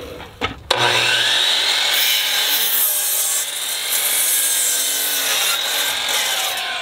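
A 12-inch sliding compound miter saw with its original DeWalt 12-inch blade crosscuts a dry 2x10 board. After a couple of clicks, the saw starts suddenly at under a second in and runs loud and steady, its blade tearing through the wood.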